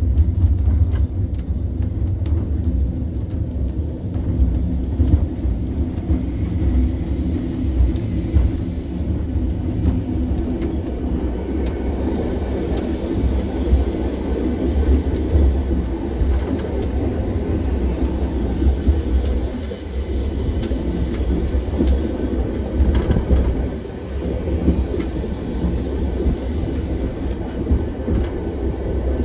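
Museum tram running along its track: a steady low rumble of wheels on rail, with scattered clicks and rattles throughout.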